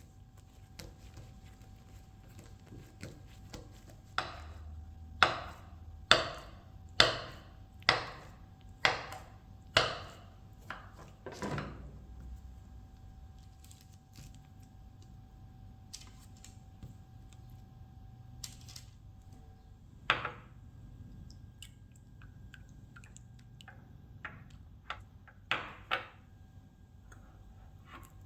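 Knife chopping on a cutting board: a run of about eight firm strokes roughly a second apart, then a few lighter scattered taps.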